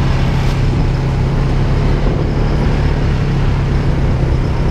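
ATV engine running at a steady pace while riding a dirt trail, heard close up from the machine carrying the camera, with a haze of wind and trail noise over its low hum.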